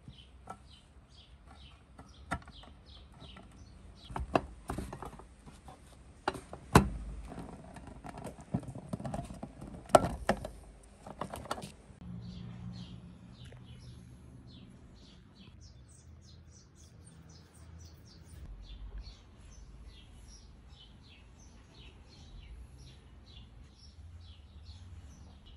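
Sharp metallic clicks and knocks from a painted metal stove case and its wire carrying handle being handled and fitted together, loudest about 7 and 10 seconds in, stopping about halfway. Birds chirp in the background throughout.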